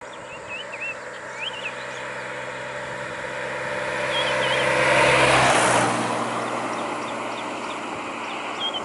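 A light box truck driving past close by: its engine and tyres grow louder to a peak about five seconds in, then fade as it moves away. Birds chirp a few times.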